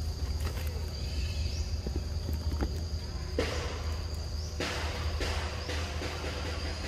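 Rustling and crunching of leaf litter and undergrowth as macaques move about, in several short bursts around the middle, over a steady high-pitched drone and a low rumble.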